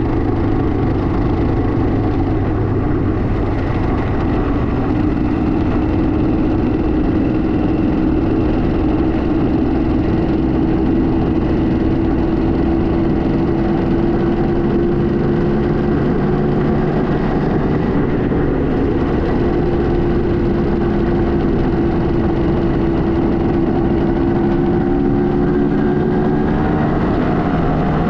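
Kawasaki KMX200's two-stroke single-cylinder engine running steadily under way, its pitch rising slowly, then dropping and changing near the end.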